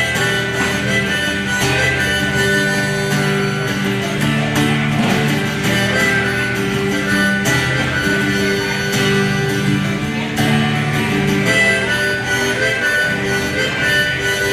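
A band playing a song live: an instrumental passage with no singing, full of held, sustained notes over a steady strummed rhythm.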